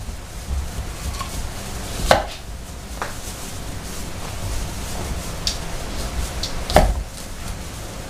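Cleaver-style knife cutting fruit on a wooden cutting board: two sharp knocks of the blade striking the board, about two seconds in and near the end, with fainter cuts between.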